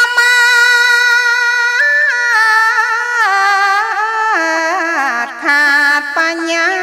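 A woman chanting Khmer Buddhist smot solo: long held notes that slide and waver, stepping down in pitch about halfway through, with a brief breath a little after five seconds.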